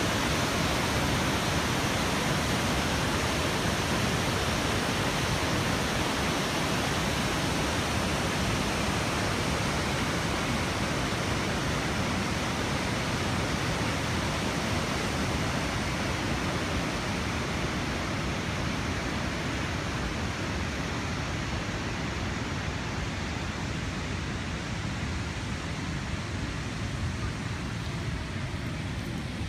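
Nugget Falls, a large waterfall, rushing steadily, growing a little fainter in the last third.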